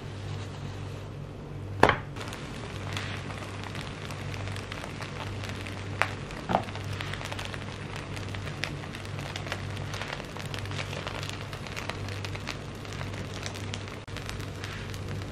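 Milk-soaked bread frying in butter in a nonstick grill pan, sizzling steadily with many small crackles. A few sharper pops stand out about two seconds and six seconds in.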